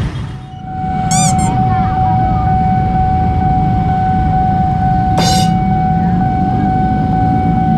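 Level-crossing warning signal sounding a steady electronic tone as the boom barrier comes down, over the running of motorcycle engines at the crossing. Brief high warbling chirps come just after the tone starts, and a short sharp sound about five seconds in.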